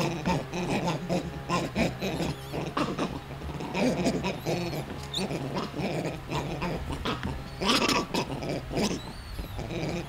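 Vervet monkeys calling during a fight between two troops through a fence: a run of short, noisy calls, loudest about four and eight seconds in.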